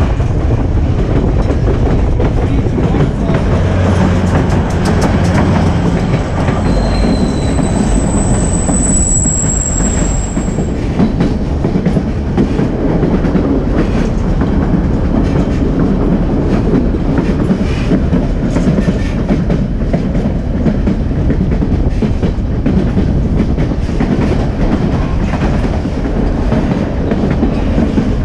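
White Pass & Yukon Route passenger train running along the rails, heard from a window of one of its cars: a steady rumble with the clickety-clack of the wheels. A high wheel squeal sounds for a few seconds about eight seconds in.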